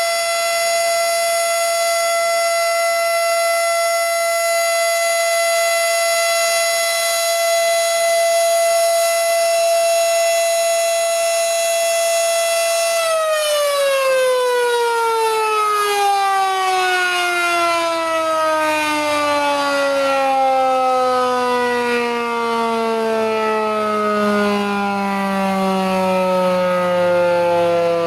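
Federal Signal Model 7 electromechanical tornado siren sounding a steady tone, then, about halfway through, shut off and winding down, its pitch falling slowly and continuously.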